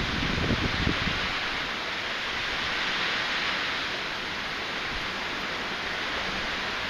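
Steady rushing hiss of typhoon wind and rain, with gusts buffeting the microphone in about the first second.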